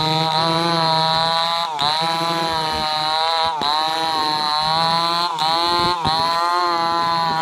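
Stihl two-stroke chainsaw running at full throttle while cutting through a log lengthwise. Its pitch dips briefly about four times as the engine is loaded in the cut, then climbs back.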